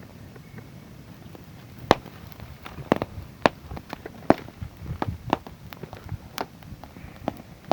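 Fire crackling: irregular sharp pops and snaps, a handful of them much louder than the rest, over a low steady rumble.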